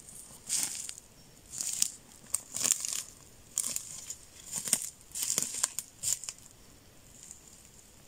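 Footsteps crunching over dry twigs and forest litter, a string of uneven crackling steps with small sticks snapping underfoot, ending about six seconds in.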